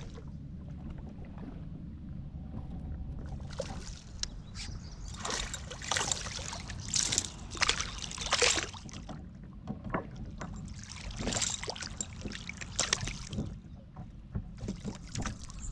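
Water splashing at the side of a kayak in a run of irregular sudden splashes as a hand works in the water beside the hull, over a steady low rumble of moving water.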